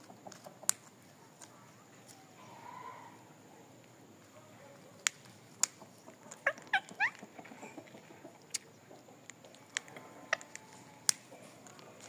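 Rose-ringed (Indian ringneck) parakeets: a quick run of short, squeaky gliding chirps just past halfway, with sharp clicks scattered before and after.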